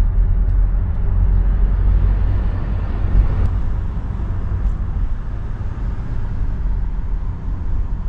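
Steady low rumble of a car being driven: road and engine noise in the cabin, picked up by an action camera's microphone with wind-noise reduction switched on.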